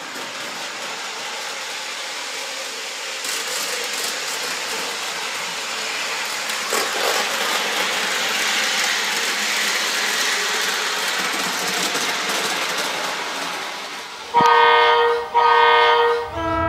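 O gauge model train running at speed on its layout track: a steady rolling rattle and hiss of wheels and motor that swells as the train comes close. Near the end, two loud train-whistle blasts, with a third beginning right at the end.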